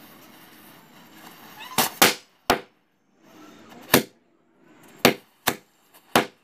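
Small Diwali firecrackers set off by a burning matchstick chain, going off one after another: about seven sharp bangs at irregular intervals, the first about two seconds in, over the hiss of the burning matches.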